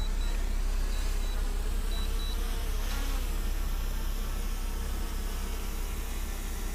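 Small quadcopter drone's propellers buzzing steadily as it hovers and descends to land, over a steady low rumble.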